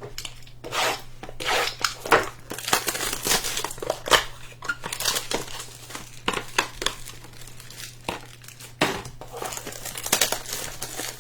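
Plastic wrapping on trading-card packaging crinkling and tearing as it is unwrapped by hand, in a dense run of irregular crackles.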